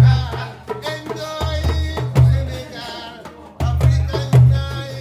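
Live West African music: two djembes beating out a loud rhythm with strong deep strikes, under a plucked gourd-bodied lute and a man's singing voice.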